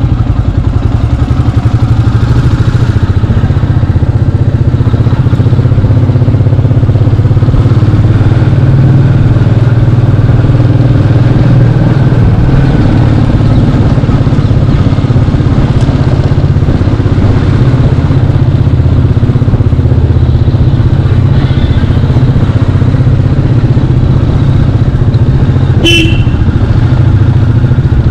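Royal Enfield Meteor 350's single-cylinder engine running steadily as the motorcycle is ridden at low speed, heard from on board. A short high-pitched blip cuts through near the end.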